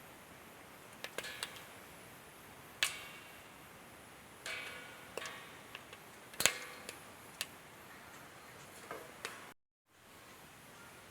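Maize and sorghum kernels popping in a hot pan: scattered, irregular sharp pops, a few louder than the rest, over a low hiss. The sound cuts out briefly near the end.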